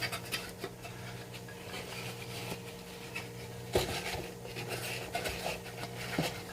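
Rustling, scraping and light clicks of a boxed mini PC and its packaging being handled, with a sharper knock about four seconds in, over a faint steady hum.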